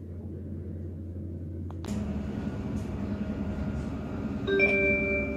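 Steady low running hum inside a Stadler FLIRT train, with a click about two seconds in. About four and a half seconds in, the onboard announcement chime rings out as several tones together, fading slowly.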